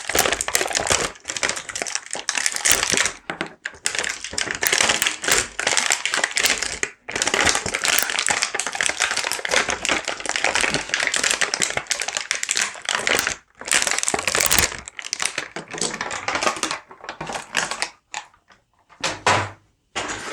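Plastic toy packaging being handled and pulled open: a dense run of crinkling and crackling full of quick clicks, thinning to a few separate clicks near the end.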